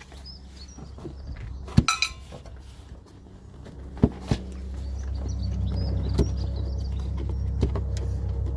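Sharp clinks and knocks of small metal parts being handled, one ringing briefly about two seconds in, as air filter housing fasteners are removed and set down. A low steady rumble swells in from about four and a half seconds.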